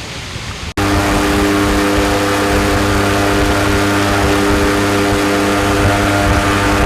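A steady rushing noise cuts off abruptly under a second in, giving way to a loud engine running at a steady, unchanging pitch.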